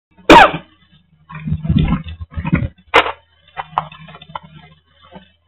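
Handling noise on a pen camera's built-in microphone as the camera is moved about: irregular rubbing and bumping, with a loud short sweep falling in pitch near the start and a sharp click about three seconds in.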